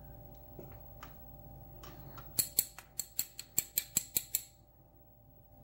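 Quick run of about ten sharp metallic taps on a lock cylinder housing, roughly five a second, starting about two and a half seconds in and lasting about two seconds. The housing is being tapped to knock a pin spring out of its chamber.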